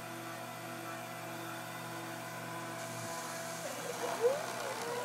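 Hobby CNC machine starting its program: a steady motor hum, then about three and a half seconds in the stepper motors begin moving the axes, whining in pitch glides that rise and fall over and over.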